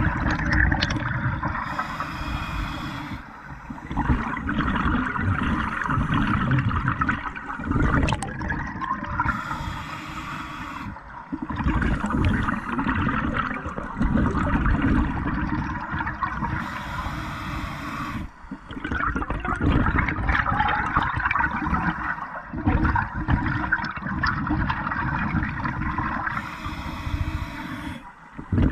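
Scuba diver breathing through a regulator underwater: four short hissing inhales, about seven to eight seconds apart, each followed by a long rush of exhaled bubbles.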